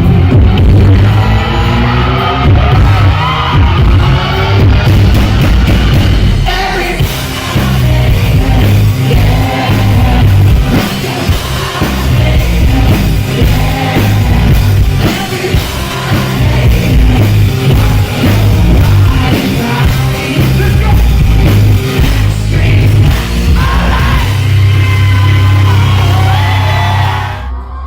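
Loud live rock music with a singer singing and yelling over a heavy bass and drums. It cuts off abruptly just before the end.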